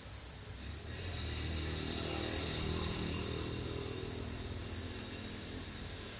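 A motor vehicle's engine running, swelling about a second in and easing slightly toward the end.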